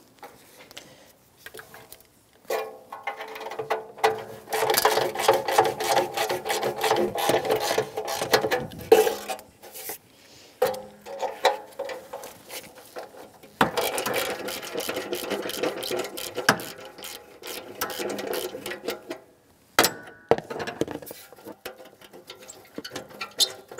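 Ratchet wrench with a 12 mm socket clicking rapidly as exhaust manifold heat shield bolts are turned out, in two long spells with a short pause between them.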